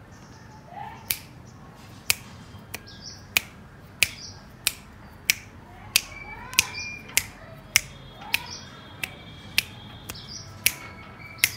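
Fingers snapping in a steady rhythm, about three snaps every two seconds, with a few faint short high-pitched calls between the snaps.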